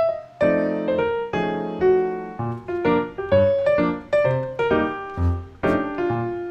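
Background music: a piano playing a lively run of short, separate notes.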